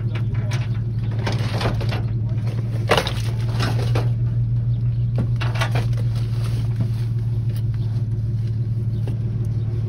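A steady low engine hum, with bursts of rustling and a few knocks from bags and gear being handled in a pickup truck bed under its open camper shell.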